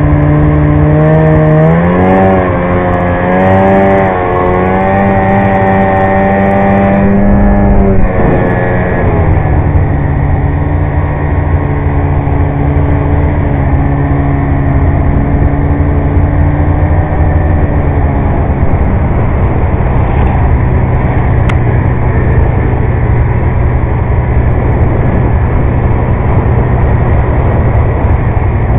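Polaris snowmobile engine running under throttle while the sled rides through snow. Its pitch rises about two seconds in and wavers, drops around eight seconds and holds lower and steady, then turns to a rougher, even drone in the second half.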